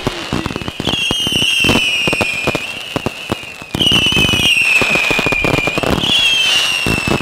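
Ground-launched consumer fireworks going off in a rapid string of pops and bangs. Three high whistles rise over the bangs about one, four and six seconds in, each falling slowly in pitch over about two seconds.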